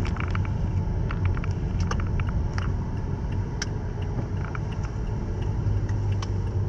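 Steady low rumble of a car's engine and road noise heard from inside the moving car's cabin, with scattered small clicks.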